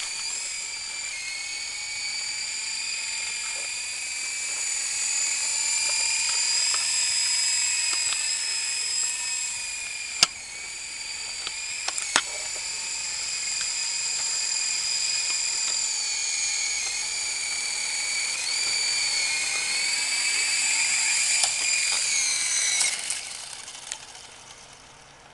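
Syma S033G small electric coaxial RC helicopter in flight: a high-pitched whine from its motors and rotors, wavering in pitch as it manoeuvres. Two sharp clicks come about 10 and 12 seconds in. Near the end the whine dies away as the helicopter lands and its rotors spin down.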